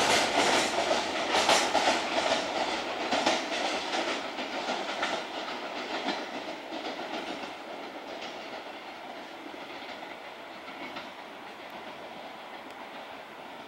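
Wheels of a container freight train clattering over the rail joints as the last wagons pull away. The clatter fades steadily and dies out to a faint rumble about halfway through.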